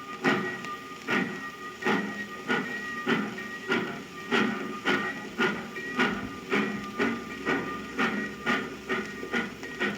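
Steam locomotive pulling away: even exhaust chuffs that quicken from a little over one a second to over two a second as the train gathers speed, with a thin steady hiss-like tone over the first few seconds. A sound-effects recording on a 1952 78 rpm record.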